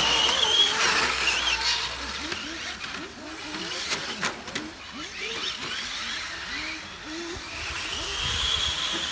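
Brushless electric motor of a 1/8-scale RC GT car on a 6S battery, whining high as the car speeds past near the start and again, rising and swelling, near the end, over a hiss of tyre noise on asphalt. A couple of sharp clicks about four seconds in.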